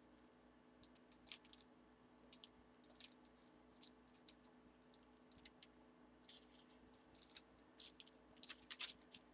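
Faint, scattered rustles and small clicks of cards and their plastic holders being handled, as fumbling hands try to slide cards in, over a steady low electrical hum.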